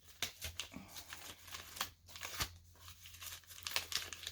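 Packing material crinkling and rustling in irregular bursts as books are unpacked by hand.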